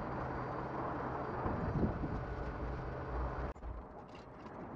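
Steady outdoor noise with a faint low hum. It cuts off sharply about three and a half seconds in, giving way to a quieter indoor stretch with a few small clicks.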